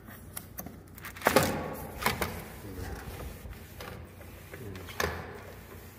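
An aluminum screen window being handled, knocking and rattling in its frame: a sharp knock about a second and a half in, another just after two seconds, and one about five seconds in.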